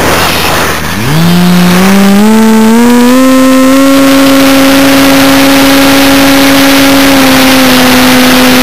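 Onboard sound of a radio-controlled model aircraft's motor: its whine climbs in steps from about a second in as the throttle opens, then holds a steady high pitch, dipping slightly later on, over loud rushing wind noise.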